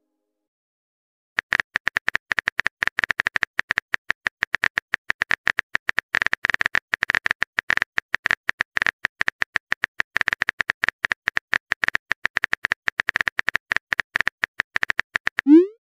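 Phone keyboard typing sound effect: a fast, steady run of clicky taps, starting about a second and a half in. Near the end a short rising swoosh, a message-sent sound.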